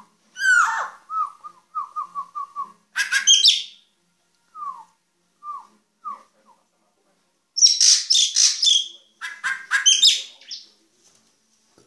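A caged drongo singing: clear down-slurred whistles, a quick run of repeated whistles early on, and harsher chattering bursts around three seconds in and again from about eight to ten and a half seconds.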